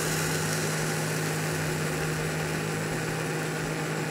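Denpa high-power blender's motor running steadily at its first speed, grinding toasted sticky rice and dried chillies to a powder in its small 300 ml cup: an even, constant hum.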